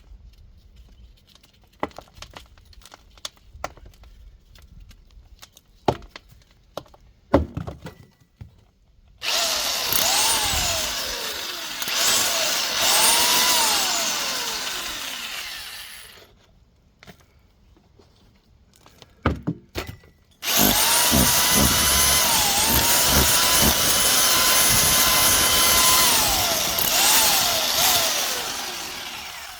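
Electric hammer drill with a chisel bit breaking through a brick wall, running in two long bursts. Its motor whine rises and falls with the load, after some scattered knocks.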